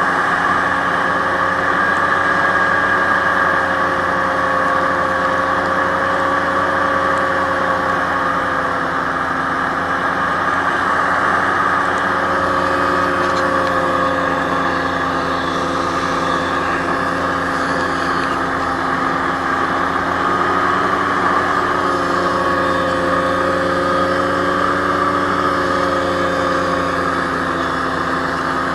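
Aerocruiser SA-1100 hovercraft's engine and fans running steadily underway, heard from on board: an even, unbroken drone with a constant rush of air.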